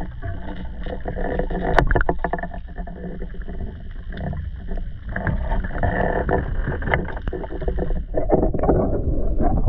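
Muffled water noise picked up by a camera submerged in lake water: a steady low rumble and wash with scattered clicks and knocks, one sharp click about two seconds in.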